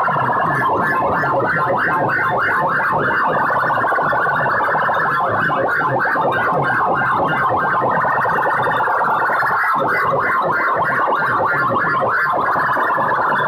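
A wall of stacked horn loudspeakers blaring at very high volume: a steady, harsh midrange blare with a rapid pulsing texture.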